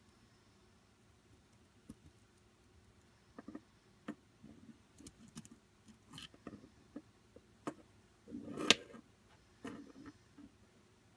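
Handling noise from a small hand-built circuit board being picked up and turned over in the fingers: scattered light clicks and taps, with a louder clatter about eight and a half seconds in.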